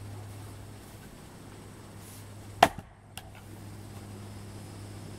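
Husqvarna splitting maul striking a firewood round once, a sharp crack about two and a half seconds in, followed half a second later by a lighter knock.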